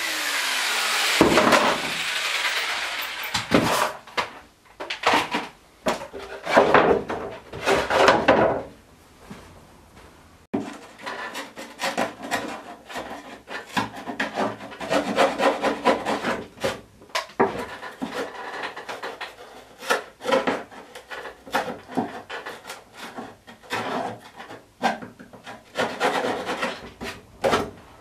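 A jigsaw winding down at the very start, then thin plywood being lifted off and knocking against the wooden frame. From about ten seconds in, a small knife blade scraping along the plywood edge of a hollow wooden surfboard in many short, rasping strokes.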